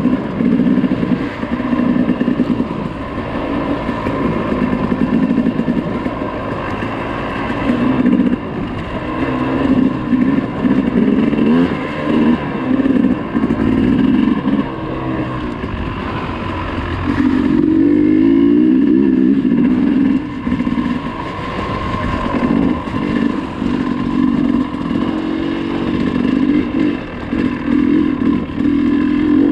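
Off-road dirt bike engine being ridden hard, revving up and dropping back over and over as the throttle is worked. Its pitch keeps rising and falling, with a long strong pull a little past the middle.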